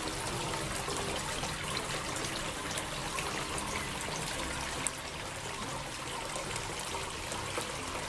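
Steady sound of running water, an even rush.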